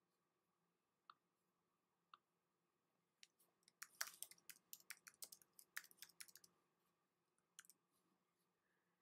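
Faint typing on a computer keyboard: a quick run of key presses lasting about four seconds, after two single clicks about a second apart, with one more click near the end.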